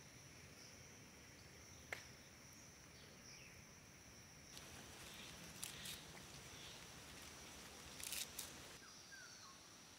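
Faint rustling of leafy litchi twigs and grass blades being handled, in short patches about five and eight seconds in, with one sharp click about two seconds in. A steady high insect drone runs underneath.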